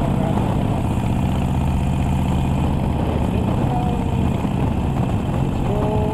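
Harley-Davidson Iron 1200 Sportster's air-cooled 1200 cc V-twin running steadily through a Vance & Hines aftermarket exhaust as the bike cruises along.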